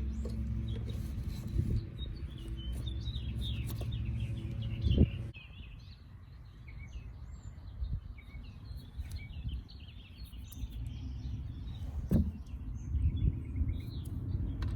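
Birds chirping over a steady low hum, with a few sharp knocks, the loudest about five seconds in and another about twelve seconds in.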